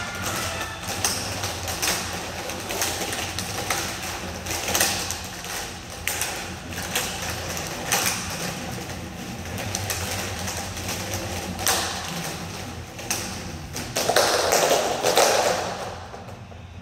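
Several large hula hoops spinning together, clicking and knocking against each other at irregular intervals, then clattering down onto a wooden floor near the end, the loudest sound. A box fan hums steadily underneath.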